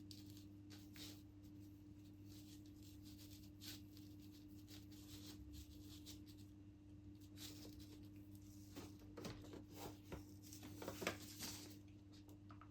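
Faint rustling and light taps of something being handled by hand, busier near the end, over a steady low hum.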